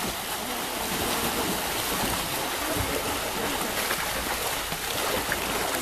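Steady splashing and churning of water from a pack of triathletes swimming front crawl together in open water.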